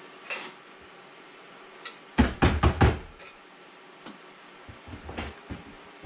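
Stainless steel pot knocked and handled, with a quick run of about five loud knocks a little past two seconds in and softer knocks and rattles around it, as leftover coffee grounds are cleaned out of it.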